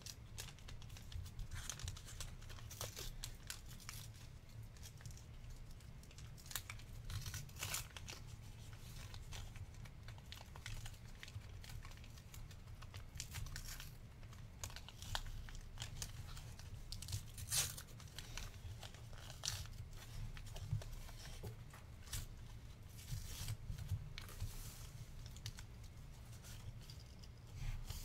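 A trading-card pack's plastic wrapper being torn open and crinkled by hand, with irregular sharp crackles. A steady low hum runs underneath.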